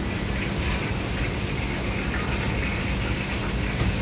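Steady rushing kitchen background noise with a low, even hum underneath.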